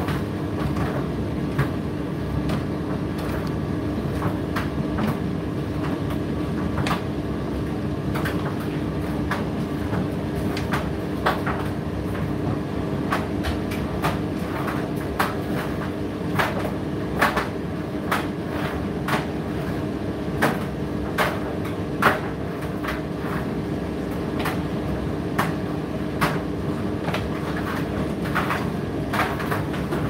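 Indesit IDC8T3 8 kg condenser tumble dryer running mid-cycle: a steady motor and fan hum, with irregular light clicks and knocks from the tumbling drum.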